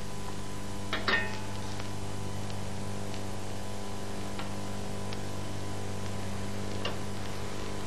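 Steady low hum with a light hiss, and one short metallic clink of the steel frying pan about a second in, with a fainter tick near the end.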